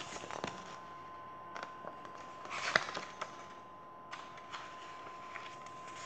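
Pages of a paperback picture book being turned and the book handled: a run of short paper rustles and light taps, the loudest about three seconds in.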